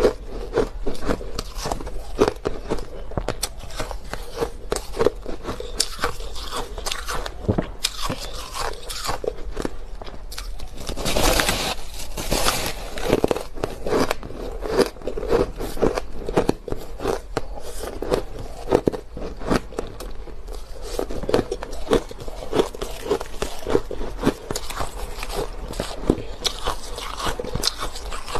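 Close-up chewing of crushed ice: a continuous run of irregular, crisp crunches as the ice is bitten and broken between the teeth, with a denser, louder stretch of crackling about eleven to thirteen seconds in.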